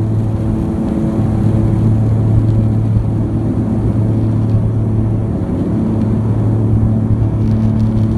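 Small plane's engines running at takeoff power, heard from inside the cabin: a loud, steady drone with a deep hum.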